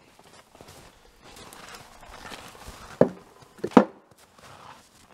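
Footsteps crunching in snow, with one hard knock about three seconds in and two more in quick succession just before four seconds.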